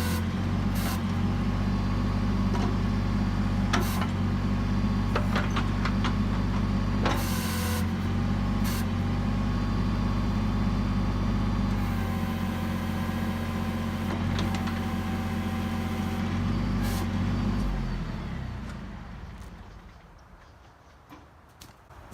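Kubota L39 tractor-loader-backhoe's diesel engine running steadily with a thin whine and scattered sharp clacks and cracks, then shut off about eighteen seconds in and dying away. The shutdown comes as a hydraulic line has just blown, which the operator takes the smoke for.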